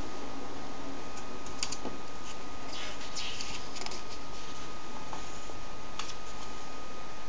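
A comic book and its packaging being handled: a few soft rustles and clicks of paper and plastic over a steady hiss with a faint constant tone.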